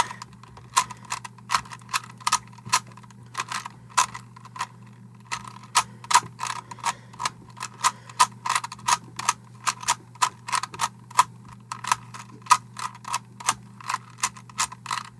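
Plastic Rubik's Cube being turned quickly to scramble it: rapid clicking and clacking of the layers snapping round, several turns a second at an uneven pace.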